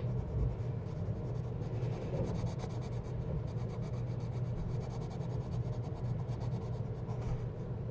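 Colored pencil scratching back and forth on coloring-book paper as an area is shaded in red, over a low steady hum.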